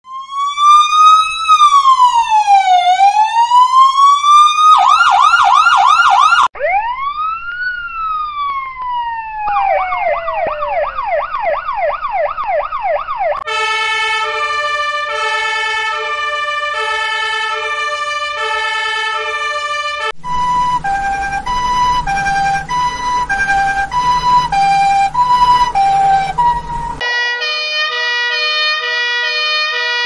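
A series of emergency-vehicle siren sound effects. For about the first 13 seconds a police siren goes through slow rising-and-falling wails and fast yelping sweeps. A two-tone fire-truck siren follows, alternating between two pitches, with a low rumble under a second two-tone pattern from about 20 seconds, and an ambulance's alternating two-tone siren starts near the end.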